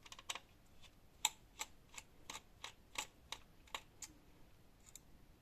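Small screwdriver working the two tiny screws that hold a laptop motherboard part: a quick run of sharp, irregular clicks about three a second, then one more click near the end.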